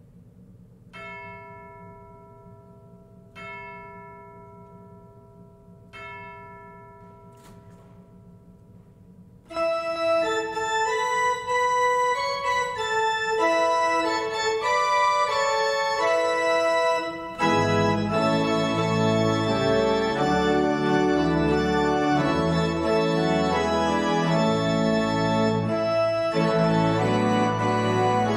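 Three separate chime strokes, each ringing and fading over about two seconds. About nine seconds in a pipe organ begins the closing postlude, with deep pedal notes joining a little past halfway and the music growing louder.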